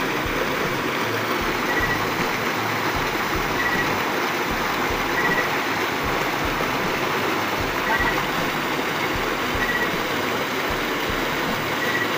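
Water gushing out of a large pipe outlet and churning into a pool, a steady loud rush. A faint short high note repeats about every two seconds.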